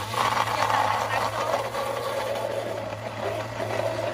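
Electric countertop blender running steadily, its motor humming as it blends chunks of fruit into juice.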